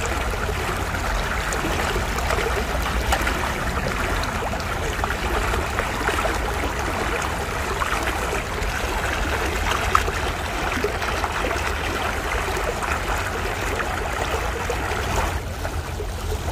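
Small mountain creek rushing steadily over rocks and boulders, with a steady low rumble beneath it.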